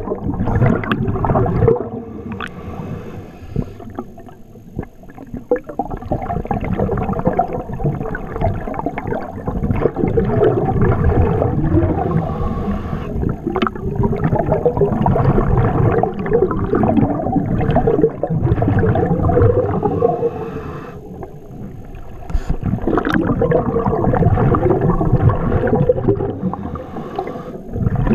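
Underwater scuba breathing: the diver's exhaled bubbles gurgling out of the regulator, swelling and fading with each breath, with two quieter lulls between breaths.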